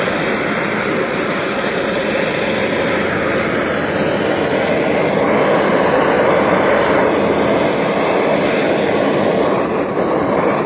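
Hand-held propane torch burning with a steady rushing noise, its flame held against the wood to scorch the surface.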